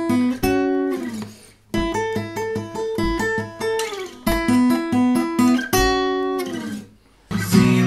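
Steel-string acoustic guitar, tuned a half step down, playing a bluesy single-note riff in G. The phrase is picked and repeated with brief pauses, some notes sliding down in pitch. Just before the end a fuller, louder passage begins.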